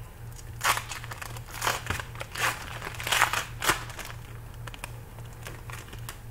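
Crinkling of a foil trading-card pack wrapper being handled, in a run of short rustles over about three seconds, then fading to soft handling sounds.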